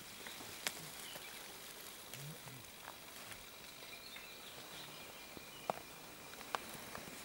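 Quiet outdoor background with a faint distant voice and a few sharp ticks: one about a second in and two more near the end.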